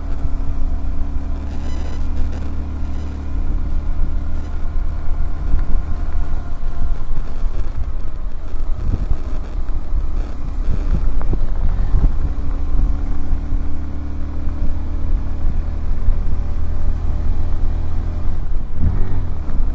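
Honda CBF125R single-cylinder 125cc motorcycle engine running steadily under way, with wind rumble on the microphone. Near the end the revs drop and climb again.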